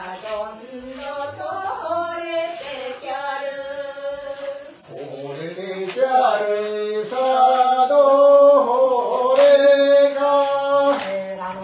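A voice singing a Japanese folk song in long, wavering held notes, growing louder about halfway through.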